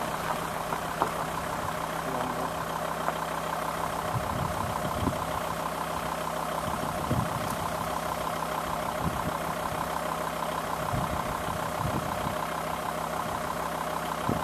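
Game-drive vehicle's engine idling steadily.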